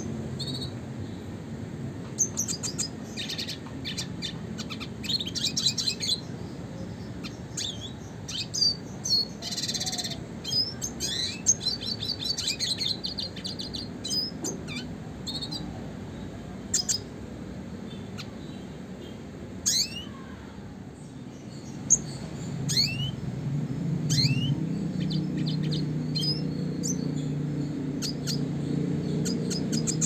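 Red siskin (Spinus cucullatus) singing: short twittering phrases, chirps and fast trills, with a run of quick rising notes about two-thirds of the way through. A low steady hum sits underneath and grows a little louder near the end.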